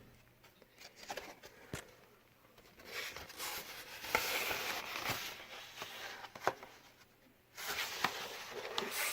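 Crinkling and rustling of a FedEx package being handled, with scattered light clicks.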